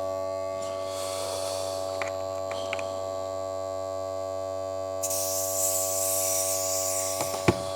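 Smoke leak tester's electric air pump buzzing steadily while it pushes smoke into the engine intake to find a vacuum leak. A hiss rises about five seconds in and fades out, and there is a sharp click near the end.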